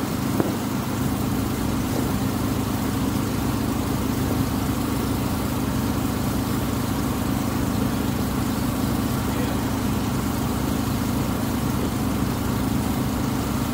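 The engine of the Tuula II, a wooden water bus, running steadily with an even low hum.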